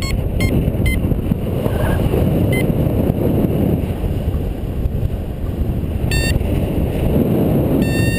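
Airflow buffeting the microphone in paraglider flight: a steady, loud rushing. A flight variometer beeps briefly a few times, in the first second and again near the end.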